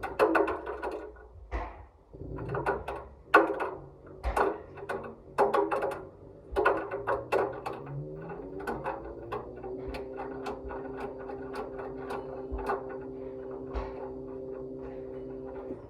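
Washing machine: a clatter of irregular knocks and clicks, then about eight seconds in a motor spins up with a rising hum and runs steadily.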